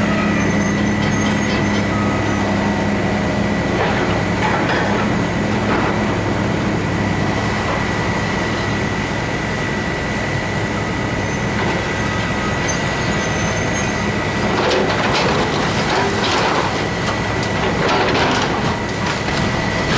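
Hydraulic excavator's diesel engine running steadily, with a steady high whine, while its demolition attachment tears into the building: crunching and scraping of breaking debris about four seconds in and again, heaviest, over the last few seconds.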